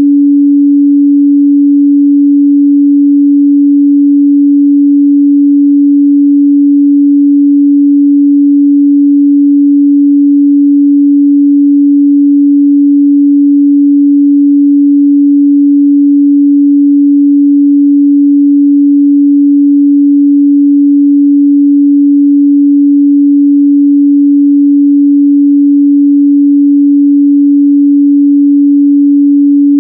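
Steady 285 Hz sine-wave test tone, a single constant hum at one pitch with no change in level.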